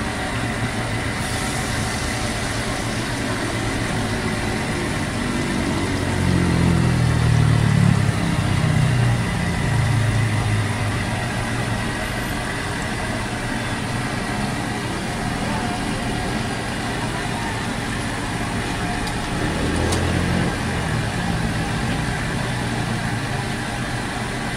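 Battered chicken intestines (isaw) deep-frying in a large wok of hot oil, a steady sizzle. A low rumble swells and fades twice, around 7 seconds in and again around 20 seconds.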